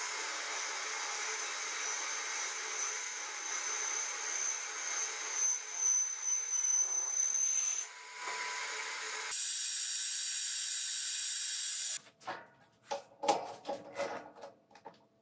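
Metal Master X40100 metal lathe running and cutting steel: a steady machining noise with a high thin whine, changing abruptly a few times. About twelve seconds in it stops, and sharp clicks and knocks follow as a chuck key is turned in the three-jaw chuck.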